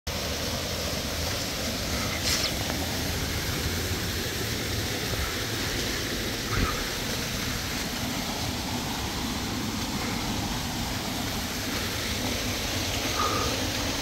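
Small waterfall splashing down over boulders, a steady rush of water, with a few brief sharper sounds standing out over it.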